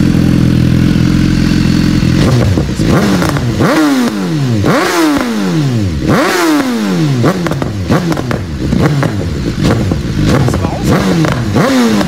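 BMW S1000R inline-four engine idling steadily, then blipped hard through about ten quick revs, each one rising and falling in pitch, roughly one a second.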